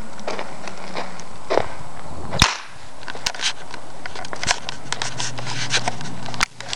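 A toy cap going off with one sharp bang about two and a half seconds in, set off by the spring-loaded hammer of a homemade trip mine when its fishing-line tripwire is walked into. Footsteps crunch on dry, gravelly dirt around it.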